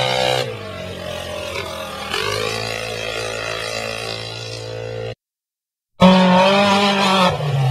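Off-road race car engine running hard, its note holding steady and then stepping about two seconds in. The sound cuts out completely for about a second. It comes back loud, with an engine note that drops in pitch near the end. Music is heard briefly at the very start.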